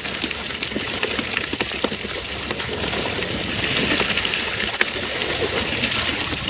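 Water pouring and splashing steadily from a fish-stocking truck's tank as it empties into a lake, with many small splashes mixed into the rush.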